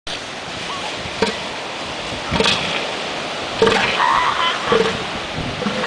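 Steady ocean surf and wind noise, broken by a few short knocks and a brief pitched call about four seconds in.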